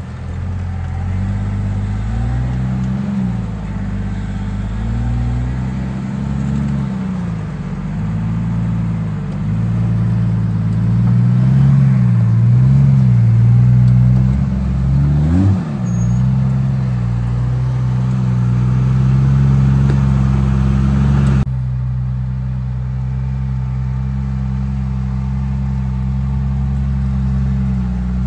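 Lifted Jeep Cherokee's engine working at low revs as it crawls over rocks, the note rising and falling with the throttle and a brief sharp rev about halfway through. About three quarters of the way in the sound cuts abruptly to a steadier engine note.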